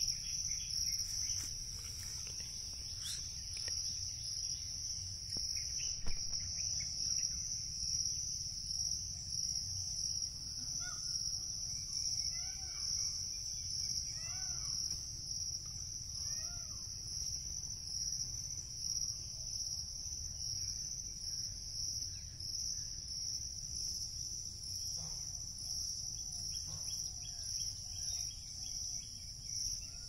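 Steady, high-pitched insect chorus that pulses slightly, with a fainter, higher pulsing insect sound above it. In the middle, a bird gives a run of short rising-and-falling calls.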